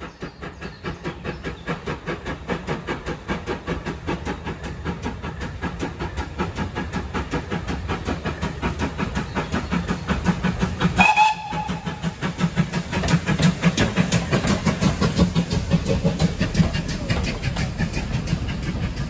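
Ex-GWR 57xx 0-6-0 pannier tank steam locomotive chuffing towards and past, its exhaust beats growing louder as it nears. It gives a short toot on its whistle about eleven seconds in, and its coaches then roll by.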